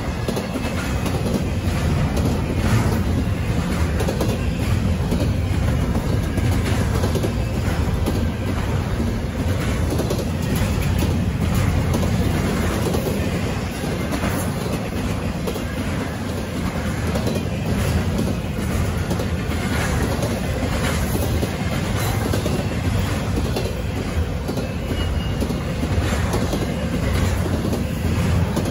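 Freight train of intermodal well cars rolling steadily past, a continuous low rumble of steel wheels on rail with repeated clacking as the wheels cross rail joints.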